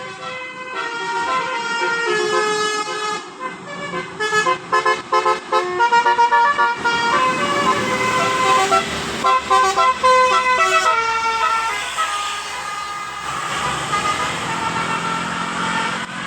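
Basuri telolet multi-tone bus horn playing a tune of stepped, held notes, with a run of quick short toots about four seconds in. A hissing noise runs beneath the notes in the second half.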